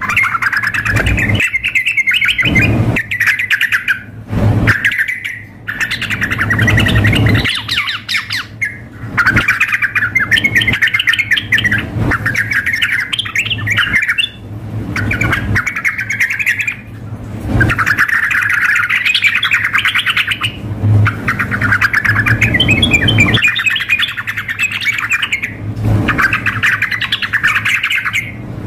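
Yellow-vented bulbuls (trucukan) singing and calling in long, fast, bubbling bouts, with short breaks between phrases; the male is in full, continuous song.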